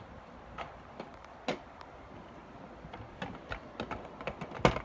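Scattered light clicks and taps from handling the plastic sound buttons, coming faster in the second half, with a sharper knock near the end.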